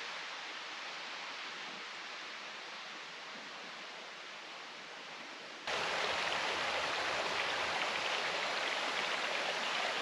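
A steady soft hiss, then, a little past halfway, the sudden start of a louder, fuller steady rush of a shallow stream running over rocks.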